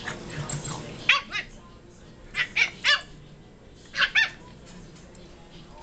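Boston terrier puppy giving short, high-pitched play yips: seven quick barks in three bursts, two about a second in, three around the middle, and two more about four seconds in.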